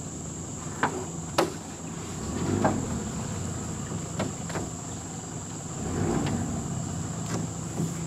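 Insects droning steadily in a high pitch over a low hum, with several sharp knocks scattered through, the loudest about a second and a half in.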